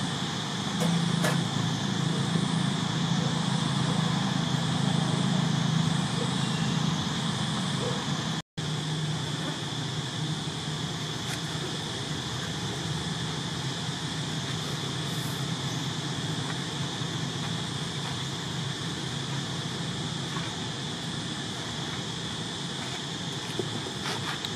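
Steady outdoor background: a low motor-like hum, stronger in the first third, under a continuous high buzz. It drops out for an instant about a third of the way in.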